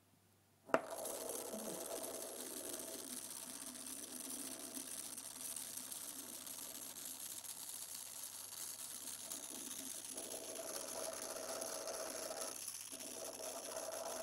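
Tiny USB-powered electric motor in a handmade steampunk USB drive, whirring steadily as it turns the drive's gears. It starts with a click about a second in, when the cable is plugged on, and stops right at the end.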